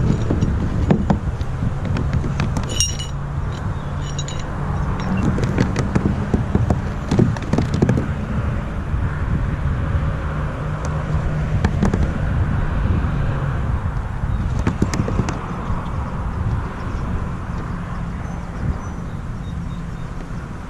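Steady low rumble of wind on the microphone, with scattered knocks and a few light clinks.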